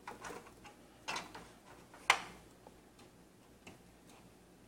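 PCIe power cable connector being worked into the graphics card's power socket: a few light plastic clicks and rubs, then one sharp click about two seconds in as the connector's latch snaps into place.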